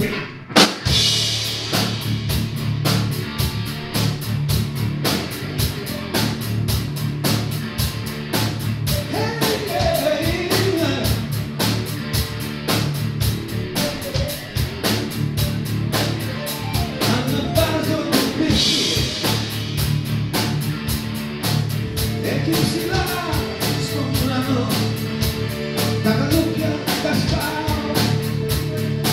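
Live rock band playing: electric guitar, keyboard and drum kit come in together with a cymbal crash in the first second and keep a steady beat. A male lead vocal sings over the band from about nine seconds in.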